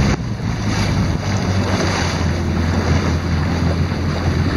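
Jet ski engine running steadily with a low hum, with wind buffeting the microphone and water sloshing around the hull.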